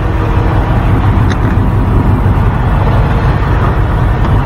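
Truck engine idling, a steady low rumble.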